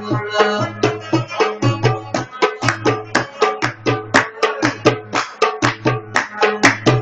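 Afghan rubab played fast: rapid, rhythmic plucked strokes, about four or five a second, ringing over a low drone from the open strings.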